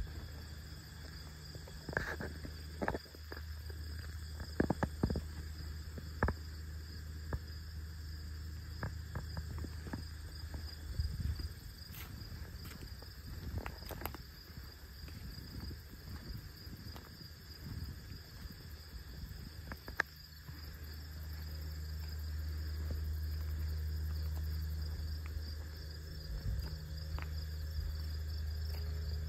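Crickets chirping steadily, with a low steady rumble underneath that swells in the last third. Scattered sharp clicks and taps come in the first half.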